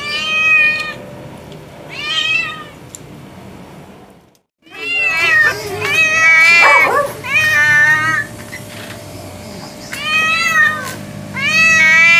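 An orange tabby cat meowing over and over: about seven loud, high-pitched meows with short pauses between them, some rising and falling in pitch. The sound cuts out briefly about four seconds in.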